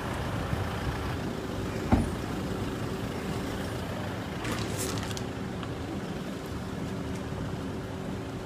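SUV engines idling with a steady hum, with one sharp knock about two seconds in and a brief hiss near the middle.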